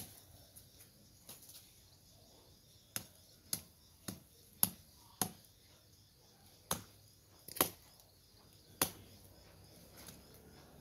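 Machete blade chopping at undergrowth at ground level: sharp single strikes, a quick run of five about half a second apart a few seconds in, then three more spaced further apart.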